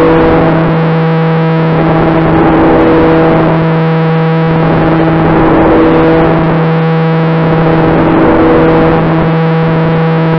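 Propellers of a twin-engine radio-controlled model aeroplane in steady flight, picked up close by an onboard camera: a constant buzzing drone that holds one pitch and swells and fades every two to three seconds.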